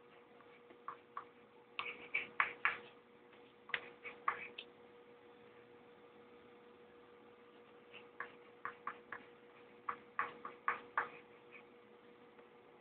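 Pencil writing on paper: quick taps and short scratches as letters are stroked out, in two clusters, the first starting about a second in and the second past the middle, over a faint steady hum.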